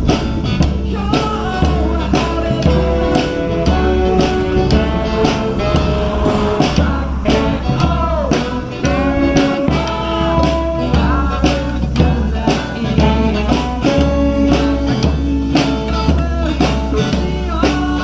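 Live band music: an instrumental passage of a blues-tinged song, with held melody notes over a steady beat and bass.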